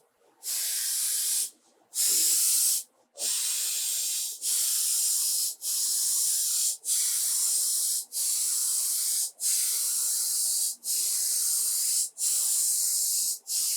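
An aerosol can of water-based polyacrylic polyurethane spraying a top coat in about eleven hissing bursts, each about a second long, separated by brief pauses.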